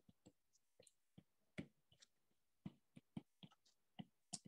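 A dozen or so faint, irregularly spaced ticks of a stylus tip tapping on a tablet's glass screen while handwriting.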